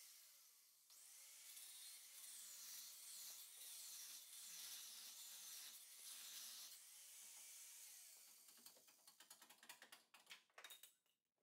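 Faint mechanical tool noise from work on a vehicle's motor mounts, over a steady hiss. It turns into a rapid string of clicks near the end.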